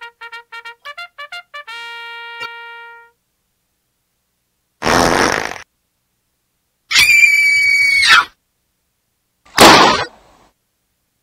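A string of separate short sound effects: a trumpet plays about eight quick staccato notes ending on a held note. After a second or two of silence come three short, unrelated effects: a rush of noise, a buzzy pitched tone about a second long, and another brief rush of noise.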